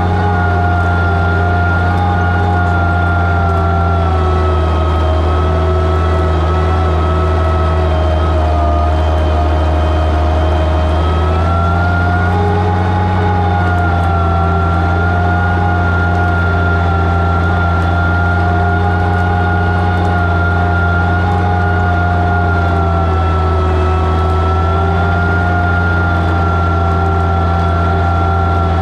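Oliver 77 tractor's six-cylinder engine running under load while pulling a plow through the soil. The pitch sags twice as the engine lugs, then recovers.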